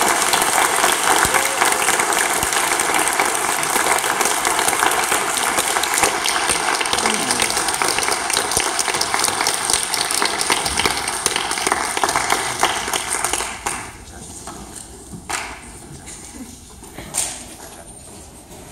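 Audience applauding in a hall, a dense patter of many hands clapping that stops fairly abruptly about fourteen seconds in, leaving only a few scattered knocks and taps.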